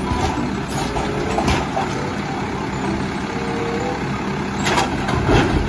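Automated side-loader garbage truck's diesel engine running steadily while the lifting arm works. Near the end comes a cluster of clunks and rattles as the cart is tipped into the hopper, the loudest part.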